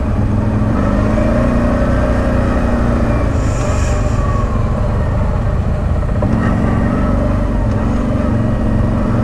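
ATV engine running at low speed in slow stop-and-go traffic, its pitch rising a little twice as the quad creeps forward.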